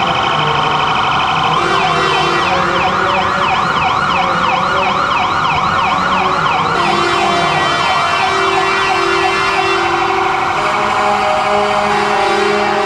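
Electronic siren of a police escort pickup yelping in fast, repeated rising-and-falling sweeps, starting about a second and a half in and stopping about seven seconds in. Steady held tones sound underneath it and carry on after it stops.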